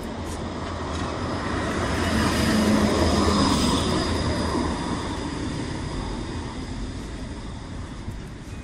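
A tram passing close by. Its rumble rises to a peak about three seconds in and then fades away, with a thin high whine from the wheels on the rails.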